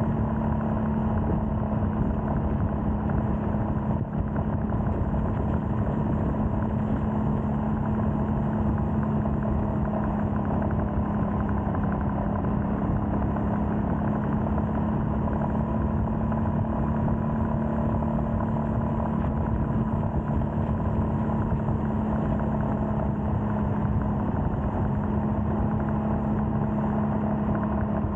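Royal Enfield Scram 411's single-cylinder engine running at a steady cruising speed, its exhaust note holding one even pitch throughout.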